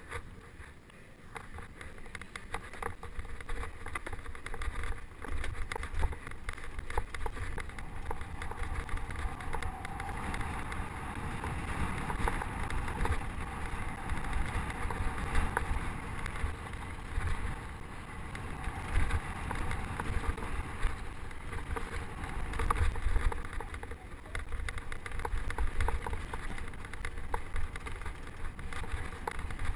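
Riding a mountain bike down dirt singletrack, heard from a camera on the rider: wind buffeting the microphone, with tyre noise on dirt and the bike's frequent small rattles and knocks over bumps.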